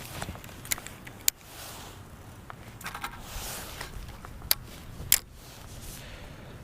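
Four short, sharp clicks or knocks, spread over a few seconds, over a faint steady background.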